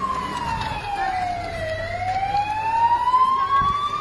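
Emergency vehicle siren wailing: one slow tone that falls in pitch for the first second and a half, then climbs steadily again.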